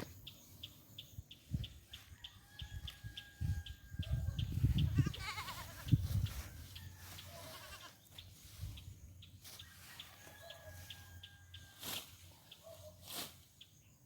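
A goat bleating several times: held, level calls, one of them wavering about four to six seconds in. Behind it a faint high ticking repeats about three times a second.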